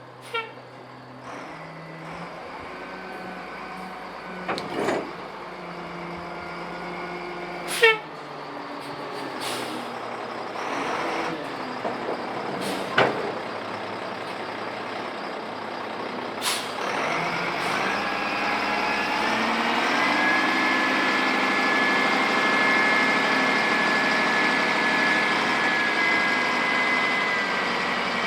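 A motor vehicle's engine running, its pitch rising at about two-thirds of the way through and then holding steady, with several sharp knocks and clanks before it.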